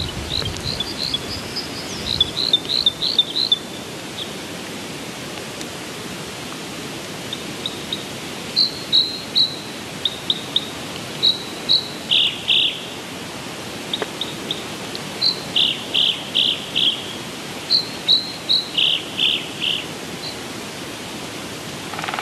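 Small birds chirping in quick runs of three to five short high notes, repeated throughout, over a steady hiss of outdoor ambience.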